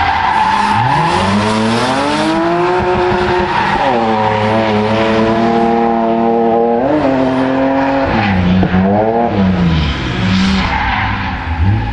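BMW E36 3 Series drift car's engine revving up and down while its tyres squeal and scrub in a smoking slide. The revs climb over the first two seconds and hold, jump about seven seconds in, then dip and climb again around the nine-second mark.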